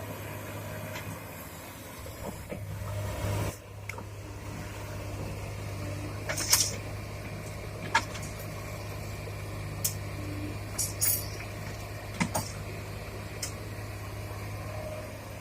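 Heavy diesel earthmoving machinery running steadily, with a handful of short sharp clanks scattered through, the loudest about six and a half seconds in.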